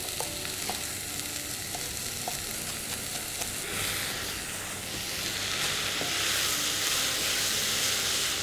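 Chopped onions and celery frying in oil in an enamelled cast-iron pot, sizzling steadily as a wooden spoon stirs them; the sizzle grows louder about four seconds in. The vegetables are being coloured to start their caramelisation.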